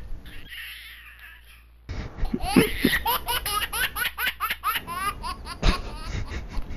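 A young man laughing: a long run of quick giggles that starts about two seconds in, after a quiet stretch of faint room hum.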